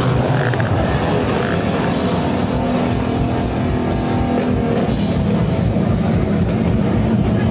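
Rock music played on electric guitar and drum kit, steady and dense throughout.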